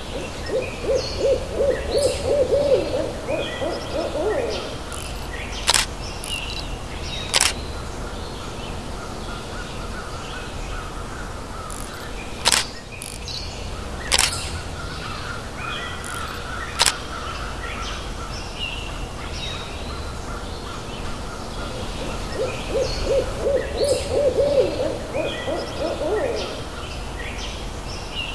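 Outdoor bird ambience: a low, rapidly repeated bird call for a few seconds at the start and again near the end, with small birds chirping throughout. Five sharp camera shutter clicks come in between.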